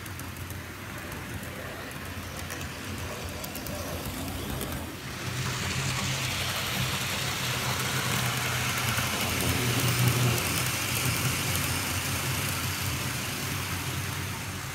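O gauge model trains running on track: a steady low hum and rolling rumble of wheels on rail, getting suddenly louder about five seconds in as a model Jubilee steam locomotive and its tender roll close by.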